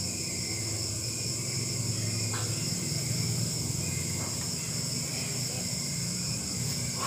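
Steady high-pitched chorus of night insects, over a steady low hum.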